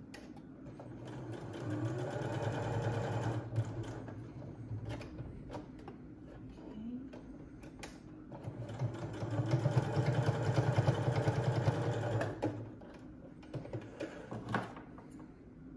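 Electric sewing machine stitching cotton fabric in two runs: one from about a second and a half in to about five seconds, and a louder, longer one from about eight and a half to twelve and a half seconds. Between and after the runs there are a few small clicks and knocks.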